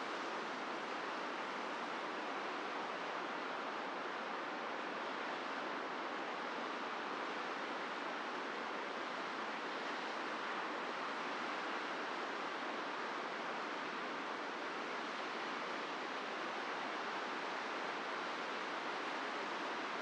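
Surf breaking along a beach: a steady, even wash of waves with no single crash standing out.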